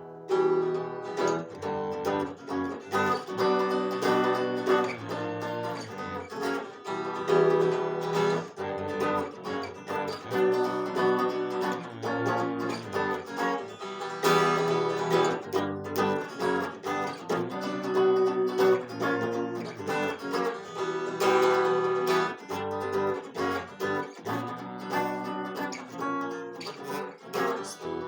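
Electric guitar playing a strummed chord progression as an instrumental intro, starting abruptly.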